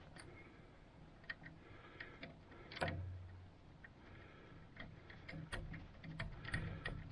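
Light, irregular metallic clicks and ticks from the plow pump motor and its steel mounting hardware being handled and fitted by hand. One sharper click comes about three seconds in, and the clicks come more often near the end.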